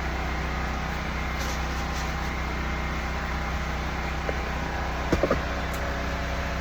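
Blow dryer running steadily, a motor hum with rushing air. A few brief knocks come about five seconds in.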